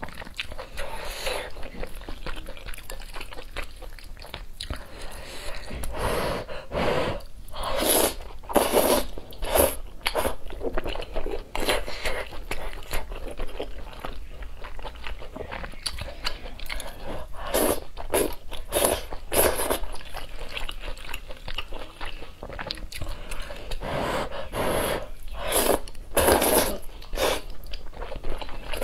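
Close-miked mouth sounds of eating spicy fire-chicken noodles with beef: repeated loud slurps of noodles and wet chewing, coming in clusters with quieter chewing between.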